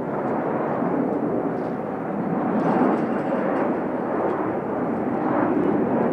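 Jet noise from four twin-engine F/A-18 Hornets flying past in close formation: a steady, dense rushing sound that swells a little about three seconds in and again near the end.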